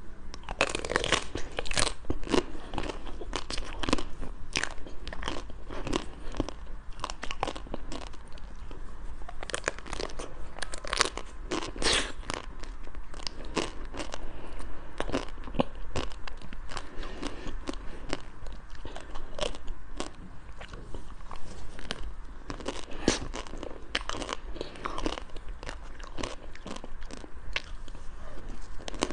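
A person biting and chewing ice cream, with many irregular crunching bites.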